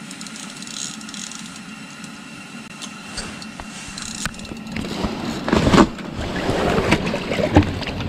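A steady low hum, then from about five seconds in, louder irregular rustling, knocks and splashing as a cutthroat trout is hauled up through the ice-fishing hole and grabbed by hand.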